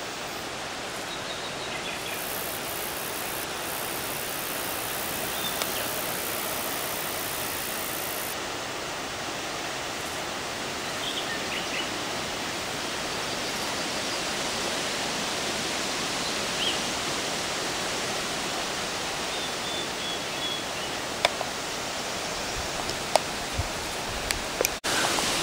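Steady hiss of open-air ambience, with a few faint short high chirps scattered through it and several sharp clicks near the end.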